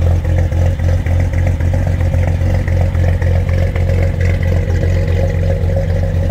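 The 1954 Chevrolet 3100's 235 straight-six idling steadily through its Fenton headers and dual exhaust, a deep, even exhaust note with a fast pulsing.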